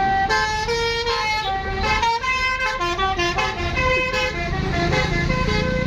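Bus telolet horn playing a quick melody of short stepped notes, with a low rumble beneath.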